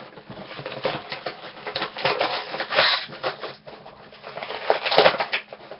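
A toy's box and packaging being handled and pulled open by hand: irregular rustling and scraping, with a sharp click about five seconds in.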